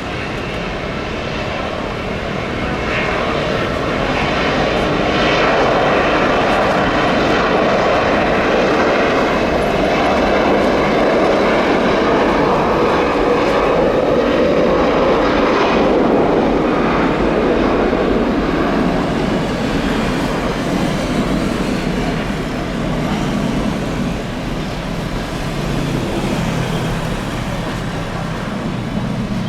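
Jet airliner's engines passing: a broad rushing roar that swells over the first few seconds, holds loudest for about ten seconds, then slowly fades away.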